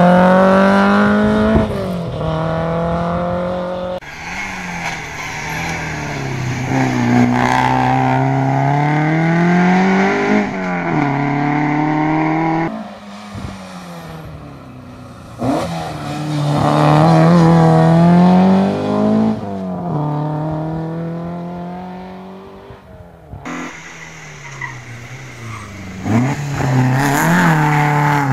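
Historic rally cars driven hard through hairpin bends one after another, with an Alfa Romeo 1750 GTAm early on, an Audi 80 GT in the middle and a Toyota Corolla SR near the end. The engine notes rise and fall repeatedly as the drivers accelerate out of the corners, change gear and lift off for the next bend.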